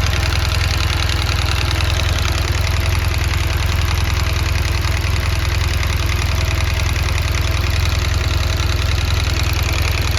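BMW R1200GS liquid-cooled boxer twin idling steadily with a fast, persistent ticking from both cylinders, which the owner wonders might be a rocker arm problem.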